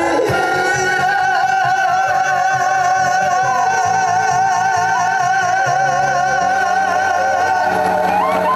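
A male singer performing a Korean trot song live with accompaniment holds one long note with vibrato, closing the song.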